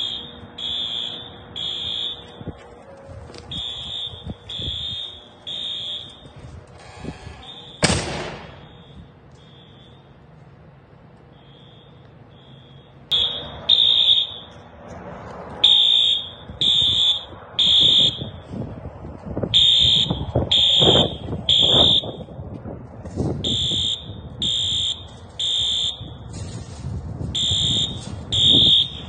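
Building fire alarm sounding loud, high-pitched beeps in repeating groups of three, the temporal-three evacuation signal. A sharp bang comes about eight seconds in, after which the alarm is faint for a few seconds before it returns at full strength.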